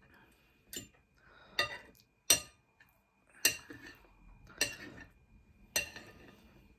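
Metal knife and fork clinking and scraping on a plate while food is cut and scooped: six or so sharp clinks about a second apart, two of them louder, with quieter scraping between.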